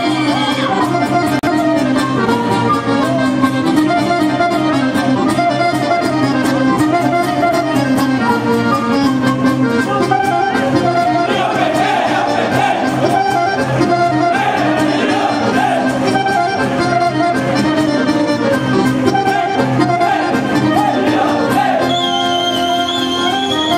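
Accordion-led Serbian folk dance music playing for a kolo, with a steady beat and a high held note near the end.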